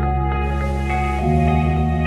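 Calm background music: sustained low notes with higher notes entering one after another above them, the chord changing a little over a second in.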